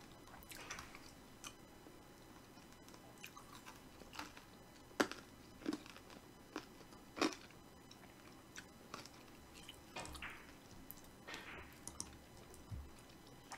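Quiet room with faint, scattered clicks and soft rustling noises, a few sharper clicks around the middle.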